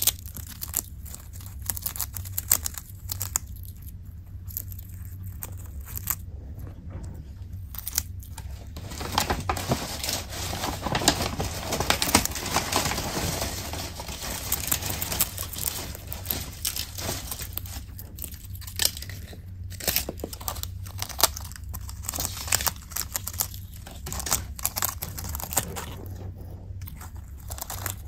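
A chinchilla biting and chewing a papaya leaf, with many small sharp crunches, while the plastic bag behind it crinkles and rustles, most densely for several seconds in the middle.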